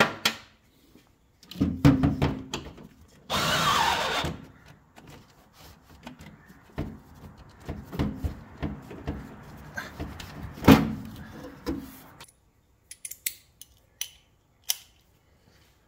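Cordless drill-driver with a socket running in short spurts on a fender bolt. Clanks and knocks of the socket and tool against the sheet metal, with one sharp loud knock a little before the last quiet clicks.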